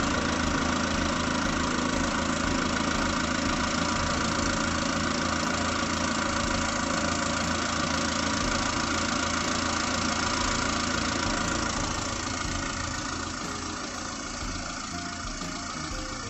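Daihatsu Taruna EFI four-cylinder petrol engine idling steadily while the ignition timing is set by turning the cam sensor. It grows fainter from about twelve seconds in.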